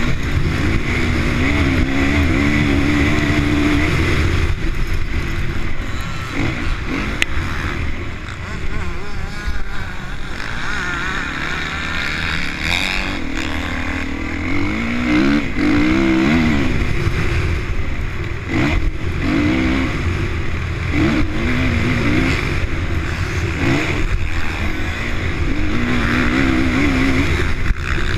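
Honda CRF450 single-cylinder four-stroke motocross engine being ridden hard. It revs up and down in pitch over and over as the rider works the throttle through the gears, with a few brief backings-off.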